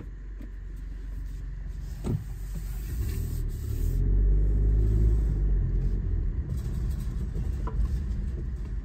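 Low rumble of a car's engine and tyres heard from inside the cabin as the car pulls away and gathers speed, swelling about four to five seconds in. There is a short click about two seconds in.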